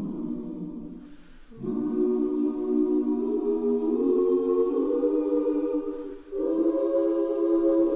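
A choir singing slow, long-held chords, rising in after a brief lull early on; one phrase ends about six seconds in and the next chord follows at once.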